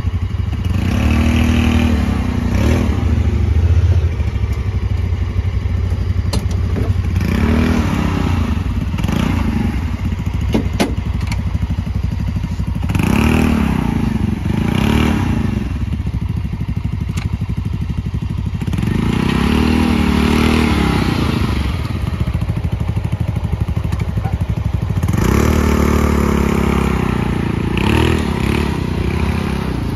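Small side-by-side UTV engines driving over rough, muddy ground, revving up and easing off about five times, with thuds and clatter from the bumpy ride.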